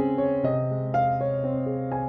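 Background music: a keyboard playing a slow melody over a held low note, with a new note about every half second.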